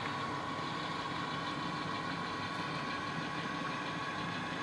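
Model railroad diesel locomotive running with its freight train, a steady engine drone with a constant hum.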